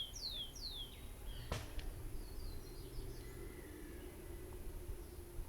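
A songbird's series of clear, evenly spaced down-slurred whistles, which ends about a second in, followed by a single sharp click and then a few faint chirps.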